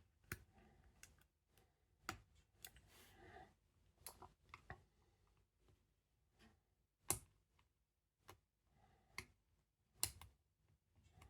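Faint, scattered clicks and a brief scrape from a heavy-duty night latch with a Chubb cylinder being worked with a pick and tension tool, a few seconds apart.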